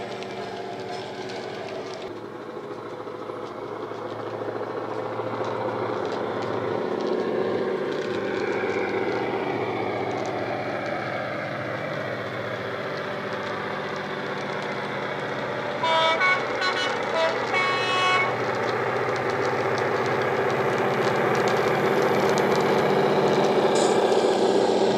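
Sound decoder in a model Class 59 locomotive playing the diesel engine running steadily, growing louder as the model approaches. About two-thirds of the way through, the horn sounds in several short blasts.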